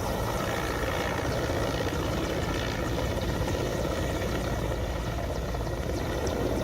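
Helicopter sound effect: steady rotor and engine noise with a low pulsing beat, cutting off abruptly at the end.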